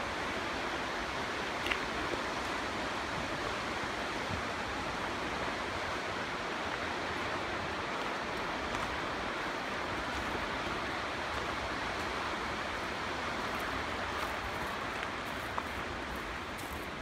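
Steady, even rushing of running water, with a couple of faint ticks.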